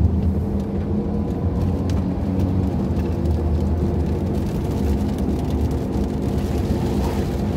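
Steady engine and road hum heard inside the cabin of a moving car, a low even drone with a few faint ticks.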